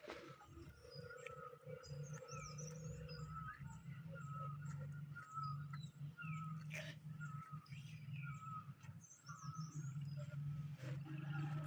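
Birds chirping in many short, repeated calls over a steady low hum.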